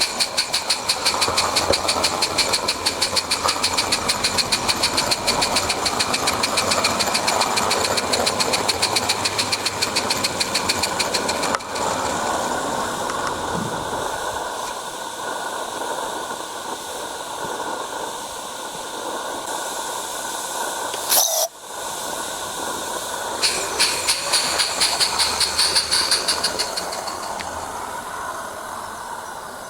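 Miniature live-steam garden railway locomotive hauling a goods train: rapid, even exhaust beats, giving way about twelve seconds in to a steadier steam hiss. After a brief gap around twenty-one seconds the beats return and fade near the end.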